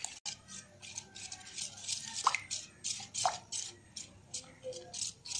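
A hand squishing and mixing a wet batter of sour curd and semolina in a steel bowl: quick wet squelching strokes, several a second, with two louder plops a second apart about two seconds in.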